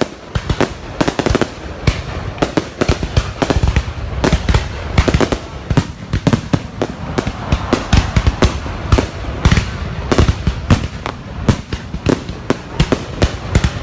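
Fireworks display going off: a dense, unbroken run of sharp bangs, several a second and overlapping.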